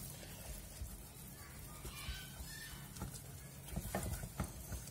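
Wooden spoon stirring and scraping a thick choux-type dough in a stainless steel saucepan, with a few soft knocks of the spoon against the pan toward the end, while the paste is worked smooth over low heat.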